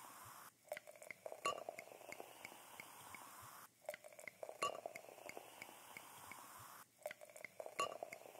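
Soft, light glass-like clinks and ticks in a short sound loop. The same pattern repeats about every three seconds, with a brief drop-out between passes.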